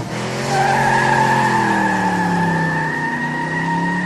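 Vehicle engine running, its pitch falling slowly, under a long, steady tire squeal that starts about half a second in.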